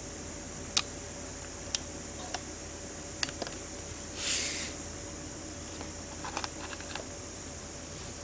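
Sharp metal clicks and taps from hand work on a piston air compressor, with the piston being worked into its cylinder with a screwdriver. A short hiss comes about four seconds in, and a few small clicks follow, over a faint steady hum.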